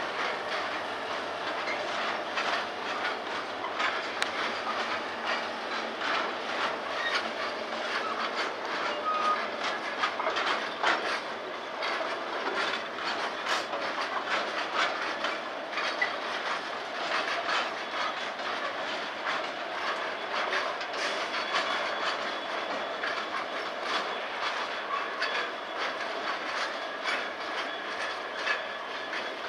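A heavy freight train's wagons loaded with steel coils roll steadily past, with a continuous rumble and an irregular clatter of wheels clicking over the rail joints.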